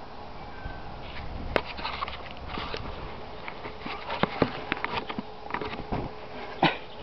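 Cocker spaniel puppy sniffing and nosing at a camera in the grass: scattered snuffles and irregular knocks as its nose bumps the microphone, with a sharp knock about one and a half seconds in and the loudest one near the end.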